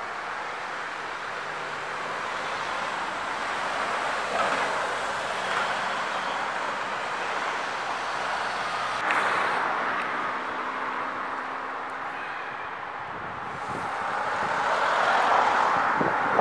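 Road traffic: a steady hum of tyres and engines as cars pass, swelling briefly a couple of times and building to its loudest near the end as a vehicle comes close.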